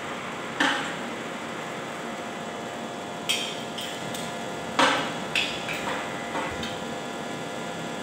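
A hammer striking steel: a handful of sharp metallic strikes at uneven intervals, the loudest about five seconds in, each with a short ring. A steady hum runs underneath, from the electric fan.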